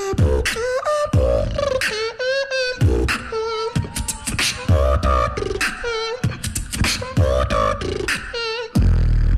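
Live vocal beatboxing into a microphone: very deep bass kicks about once a second, with clicking snares and hissing hi-hats between them and a wavering sung melody over the beat.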